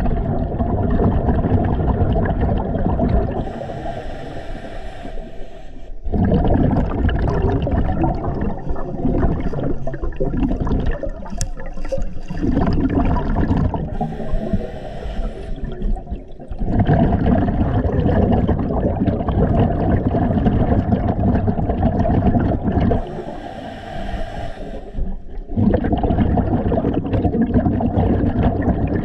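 Scuba diver breathing through a regulator underwater: three hissing inhales of about two seconds each, each followed by a longer rush of exhaled bubbles.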